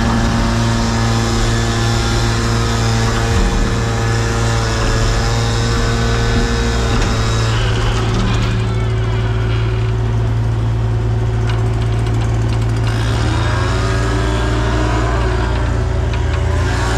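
An engine running steadily under a constant low hum, its pitch shifting and gliding a little in the second half.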